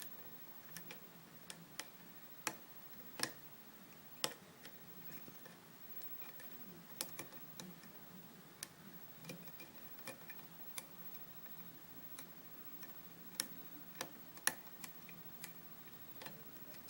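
Faint, irregular metallic clicks and ticks of a lock pick and tension tool working the serrated pins of a U-Haul disc lock.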